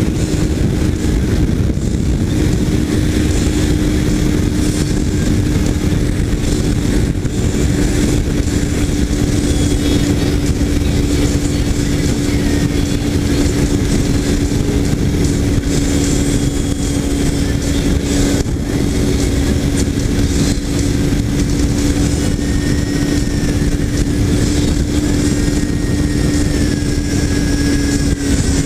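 Kawasaki Ninja 300 motorcycle cruising at a steady speed, its parallel-twin engine holding one even note, with heavy wind rush on the microphone. The engine note drops a little near the end.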